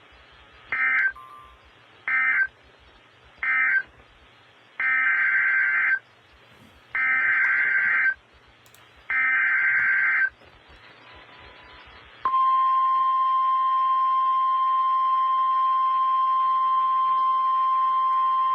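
Emergency Alert System SAME data bursts: three short warbling bursts of the end-of-message code, then three longer bursts of the next message's header. After that, the steady single-pitch NOAA Weather Radio 1050 Hz warning alarm tone starts about 12 seconds in and holds.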